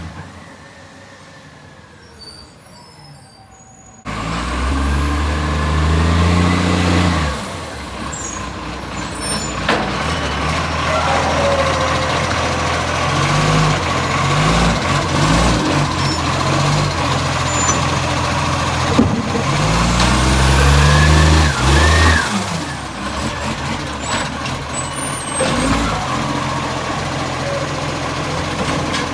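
Garbage truck's diesel engine, loud from a leaking exhaust, coming in suddenly about four seconds in and then revving up and down several times, with a few sharp clacks along the way.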